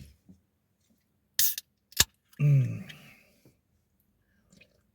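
An aluminium can of Coke Zero being cracked open: a short fizzing hiss about a second and a half in, then a sharp click. A brief vocal sound from a man follows.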